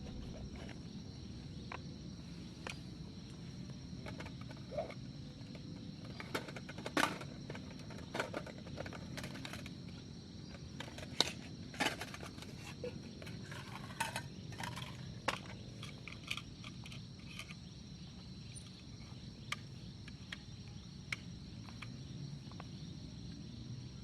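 Forest ambience with a steady high drone of insects, likely crickets, over a low rumble. Scattered sharp clicks and knocks come through, mostly in the middle stretch.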